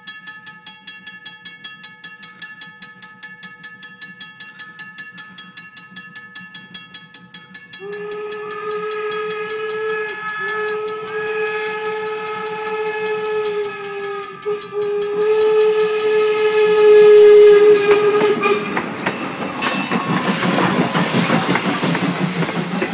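A grade-crossing bell rings rapidly and steadily. Then a steam locomotive's whistle blows three long blasts, the last the loudest. Near the end the locomotive and its passenger coaches pass close by, with steam hiss and wheels clacking over the rail joints.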